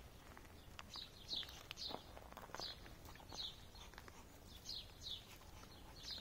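A bird chirping faintly: a string of short, high chirps, each dropping in pitch, about one or two a second at an uneven pace, with a few faint knocks or steps beneath.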